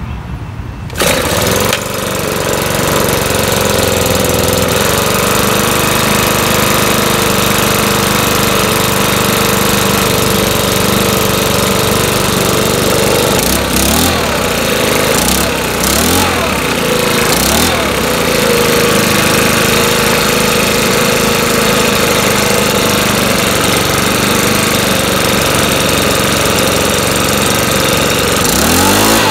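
Makita BHX2500CA four-stroke leaf blower engine starting about a second in, then running steadily at idle as it warms up. Its speed wavers briefly midway and rises near the end.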